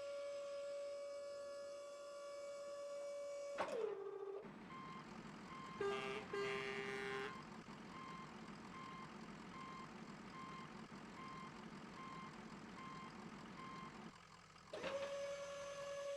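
A truck's reversing alarm beeps steadily, a little more than once a second, over a low engine rumble. A steady humming tone slides down in pitch and cuts out about four seconds in, then swells back up near the end.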